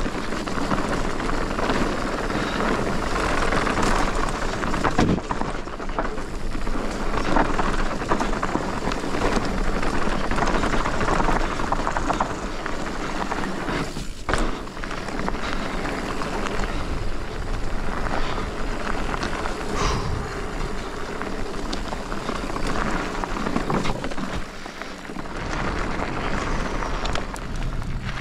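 Commencal Meta TR mountain bike descending a bike-park trail: a steady rush of tyres on dirt, with frequent knocks and rattles from the bike over bumps.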